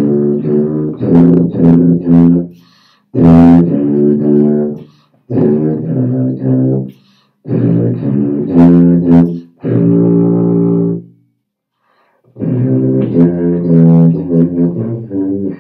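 Tuba played solo, low sustained notes in short phrases broken by pauses for breath. It stops for about a second past the middle, then starts a new melody.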